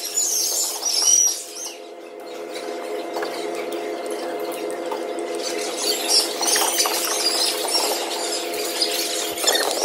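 Sneakers squeaking on a hardwood gym floor: short high chirps in the first second or so and again in the second half, over a steady hum.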